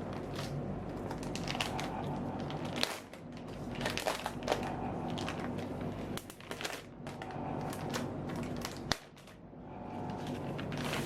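Handling noise: crinkling and scattered clicks from hands working with a laptop and its packaging, over a steady low hum.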